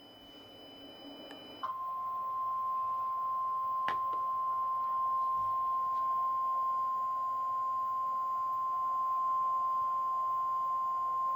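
Emergency alert tone for a tornado warning: the weather radio's single steady high warning alarm tone (1050 Hz) comes on sharply about two seconds in and holds unchanged for about ten seconds. There is a faint click about four seconds in.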